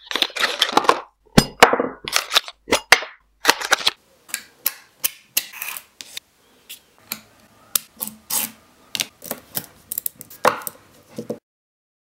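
Cardboard box of magnet balls being opened and handled, with rustling and sharp clicks. From about four seconds in, small neodymium magnet balls click against each other as a cube of them is worked in the fingers, in separate sharp clicks with small scrapes between.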